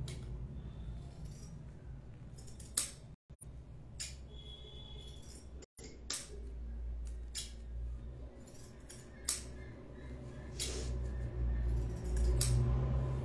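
Scattered small clicks and rustles of a metal crochet hook working strips of old cloth into a chain, over a low rumble that grows louder near the end. The sound cuts out briefly twice.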